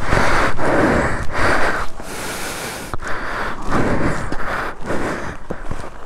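Heavy, laboured breathing close to the microphone, in rough swells about a second apart. Under it the Himalayan 450's single-cylinder engine thuds at low revs.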